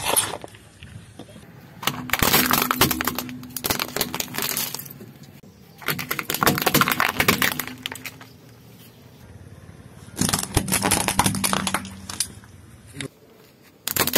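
A car tyre rolling slowly over small plastic objects and crushing them, in three stretches of dense crackling and crunching of a few seconds each, with quieter pauses between.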